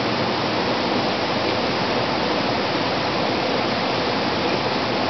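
A steady rushing noise, even in level with no separate events.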